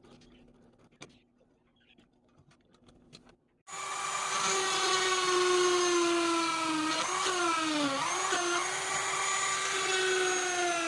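Faint handling clicks, then a small electric power tool switches on abruptly about four seconds in and runs with a steady high whine, its pitch dipping briefly a few times as it is pressed into the work.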